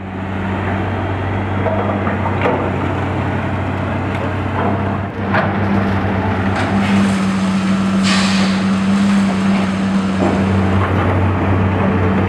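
Diesel engines of hydraulic excavators running at a steady hum, with scattered clanks and crashes of wood and masonry debris as they tear down a building, and a burst of rushing noise about eight seconds in.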